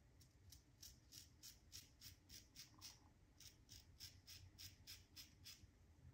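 Tatara Nodachi double-edge safety razor cutting stubble in short, quick strokes: a faint, crisp scrape about four times a second, with a brief pause about three seconds in.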